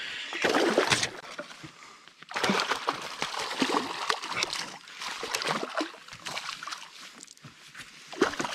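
A hooked fish thrashing and splashing at the surface beside a canoe, in irregular bursts of splashing with a short lull about two seconds in.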